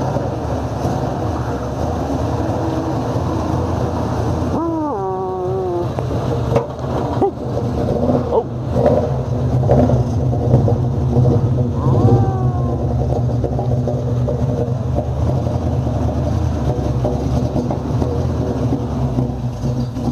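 1966 Dodge A100 van engine idling steadily after a cold start, slowly warming up after standing unused for a while; it is louder in the middle, close to the tailpipe. A short falling pitched sound cuts in about five seconds in, and another near twelve seconds.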